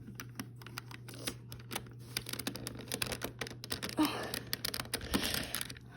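Plastic pieces of a 3x3 Rubik's Cube clicking and rattling in the hands as edge pieces are worked and pushed into the half-built cube: a fast, irregular run of small clicks.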